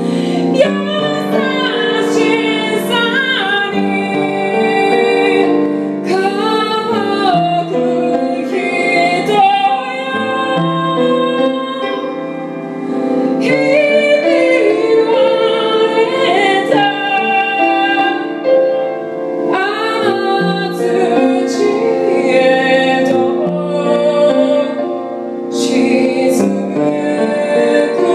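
A woman singing with her own piano accompaniment, in a song style that has a taste of Japanese traditional music.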